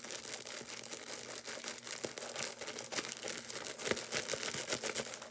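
Water-filled plastic baggie squeeze toy being squished and kneaded in the hands, its plastic giving a continuous stream of small crinkling crackles.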